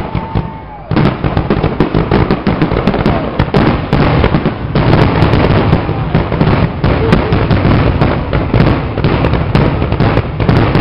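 Fourth of July aerial fireworks in a dense, continuous barrage of overlapping bangs and crackling. A whistle glides in the first second, then the bursts become louder and more constant about a second in.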